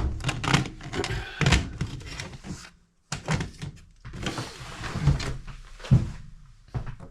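Tactical nylon gear being handled: a run of thunks and knocks with rustling as pieces are moved and set down, broken by a brief sudden cut to silence about three seconds in.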